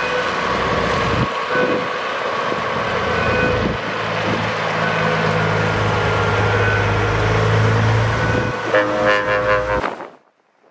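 Freightliner Coronado semi-truck's diesel engine running as the truck drives past. Near the end comes a horn blast of about a second, and then the sound cuts off suddenly.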